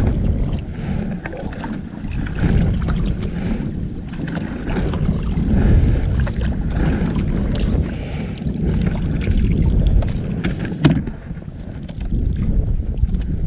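Water slapping and lapping against the hull of a small outrigger boat, with wind buffeting the microphone and an uneven low rumble. A sharper knock about eleven seconds in.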